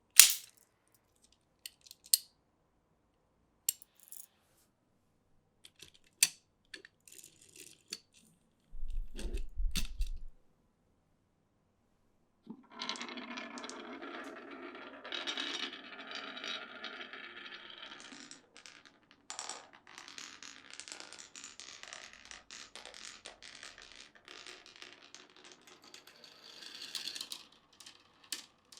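Marbles running down a marble-run track: scattered sharp clicks and knocks as they drop and hit the pieces, then from about twelve seconds in a long continuous rolling rumble of marbles travelling along the track, with clicks at the end.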